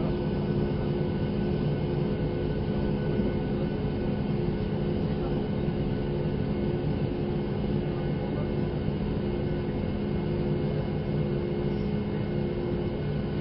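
Steady hum inside the cabin of a Boeing 737 MAX 8 taxiing, its CFM LEAP-1B turbofan engines at idle. The level holds steady, with a few low steady tones in the drone.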